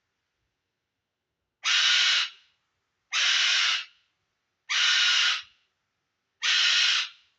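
Pet bird screaming four times, each a loud, harsh call about half a second long, roughly one every second and a half. The bird is agitated after its owner screamed in pain.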